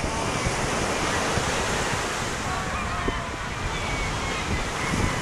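Surf washing onto a pebble beach, with wind on the microphone.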